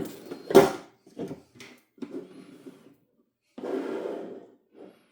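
Board-game components and packaging being handled: a sharp knock, a louder knock about half a second later, then short scrapes and rustles, and a longer rustle of about a second near the end.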